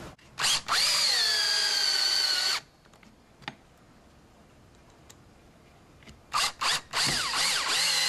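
Power drill with a Phillips bit driving screws. A couple of short bursts lead into a run of about two seconds whose pitch drops as the drill takes the load. After a pause of about four seconds, three quick bursts lead into a second sustained run near the end.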